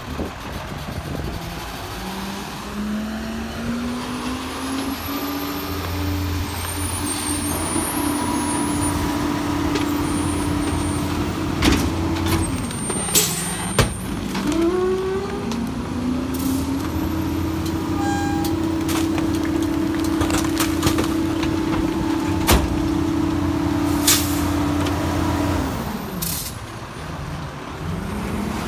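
Sterling LT7500 garbage truck's diesel engine speeding up and holding high revs while the Heil PakMor rear loader's hydraulic packer runs, twice, each time dropping back toward idle. Several sharp knocks and clanks from the loader and hopper come in the middle and again near the end.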